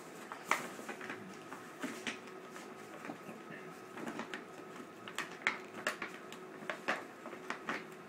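Brown paper bag crinkling and crackling in irregular snaps as a Great Dane puppy bites and shoves his head into it.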